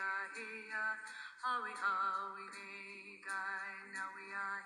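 Female and male voices singing a song together, holding long notes that step up and down in pitch.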